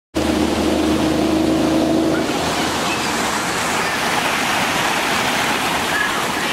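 Creek water rushing steadily over rocks in shallow rapids. A low steady hum sounds under it for the first two seconds, then stops.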